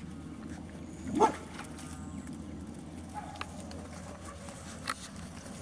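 A Labrador puppy gives one short yelp, rising in pitch, about a second in. A couple of faint clicks follow later over a steady low outdoor background.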